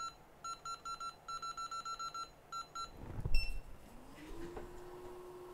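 Hot air rework station beeping rapidly as its settings are keyed in, about four short electronic beeps a second. Then comes a knock, and its blower spins up in a rising whine that settles into a steady hum, ready to lift the A10 CPU off the board.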